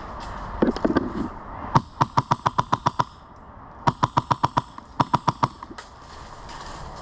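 Airsoft gun firing three bursts of rapid shots, about seven a second, the last burst the shortest.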